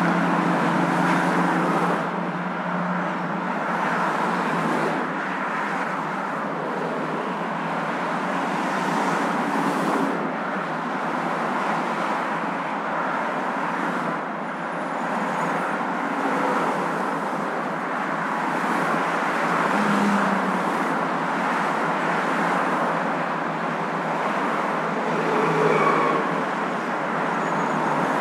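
Steady hum of a moving car: continuous road and engine noise at an even level, with a few faint steady tones near the start that stop about two seconds in.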